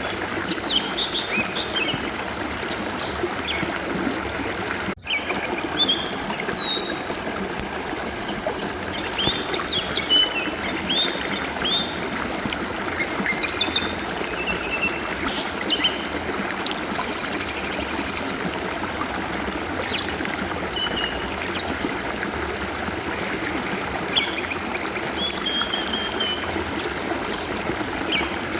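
A stream of water trickling and flowing steadily, with an Oriental magpie-robin (kacer) singing over it in short whistles and chirps. There is a momentary break in all sound about five seconds in.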